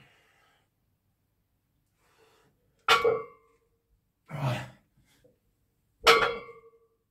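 Loaded deadlift barbell set down on the floor twice, about three seconds apart; each touchdown is a sharp knock with a brief metallic ring from the plates. A hard exhale follows between the reps.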